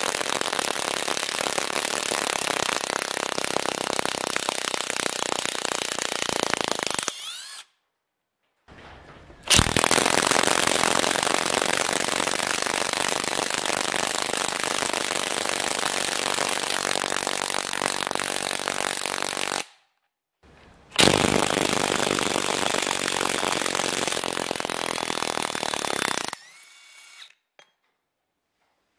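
Cordless impact wrenches, a Parkside and a DeWalt DCF894 18V, hammering rapidly as they drive 12 x 220 mm lag screws into a wooden log. There are three long runs of impacting, each starting abruptly, broken by silent gaps.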